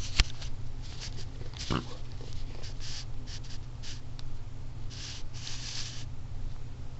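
3D-printed mini Thunderbolt tornado siren running on test: a steady low hum with scattered clicks and short hissy bursts.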